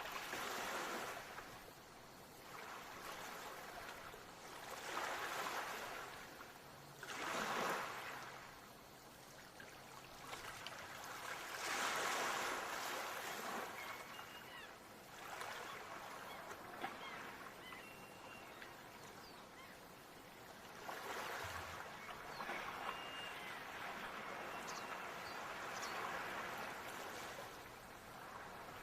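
Ocean waves washing in and drawing back, each surge swelling and fading every few seconds.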